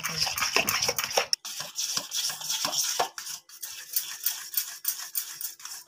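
Thick gram-flour (besan) batter being beaten with a spoon in a stainless steel bowl: quick, irregular scraping and clicking strokes of metal on the bowl. A faint steady hum sits under it from about a second and a half in.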